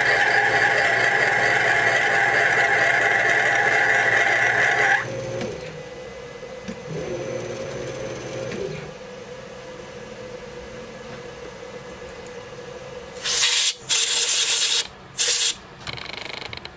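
Metal lathe running with a steady whine while an internal threading tool cuts a thread in a spinning brass nut block. About five seconds in the sound drops to much quieter running. Near the end come a few short, loud hissing bursts.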